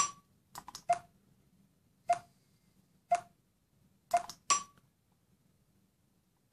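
Large round push-button accessibility switch clicking as it is pressed: about seven sharp clicks, irregularly spaced and some in quick pairs, each with a brief ringing tone.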